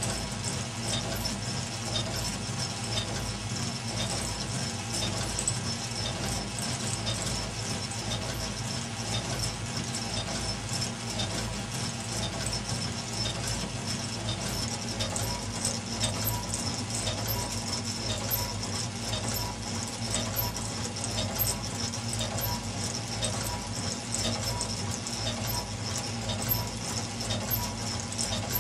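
Meccano model twin-cylinder steam engine running steadily: a constant light clatter of ticking, rattling metal strips, cranks and rods over a steady low hum.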